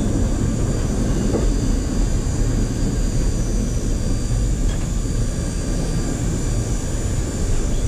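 A streetcar running along its track, heard from inside the operator's cab: a steady rumble of wheels and motors with a faint high whine above it.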